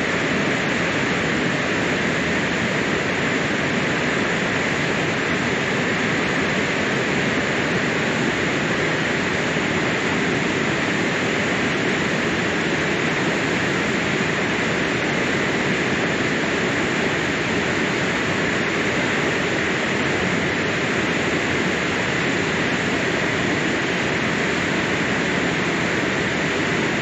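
Water pouring over and out of a check dam: a steady, even rush of falling water.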